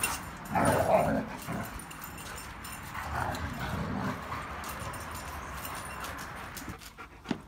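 A German shepherd and a pitbull play-fighting, with rough growling from the dogs in two louder spells: one about a second in and one about three seconds in.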